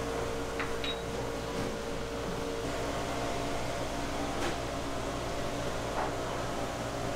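Steady machine hum over a steady noise, with a thin whine that steps up slightly in pitch a little under three seconds in, and a few faint knocks and clicks.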